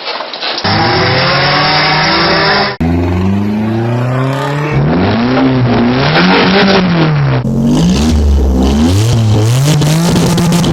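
Toyota 4A-GE 20-valve four-cylinder engine in a 1989 Nissan Pulsar, revving up and down repeatedly and loudly across several short clips spliced together, with abrupt cuts between them.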